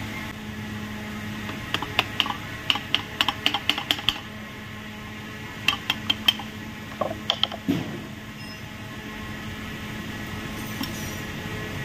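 Small metal parts and tools being handled, giving irregular bursts of light clicks and clinks, some with a brief metallic ring, over a steady low hum.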